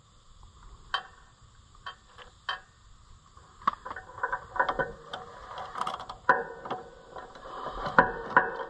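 Metal parts of an Oliver 356 sickle mower's pitman arm and crank clinking and rattling as they are handled by hand. A few separate clicks come first, then a busier run of metallic clinks and rattles from a little under four seconds in.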